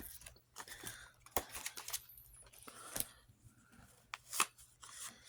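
Paper rustling with scattered light clicks and taps, from banknotes and envelopes being handled and sorted.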